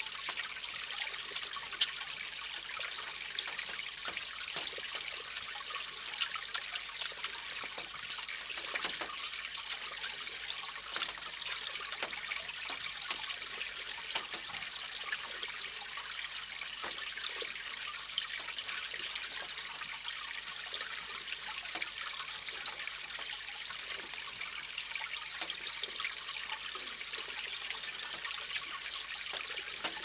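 Water trickling steadily over a small stone cascade, with scattered light clicks.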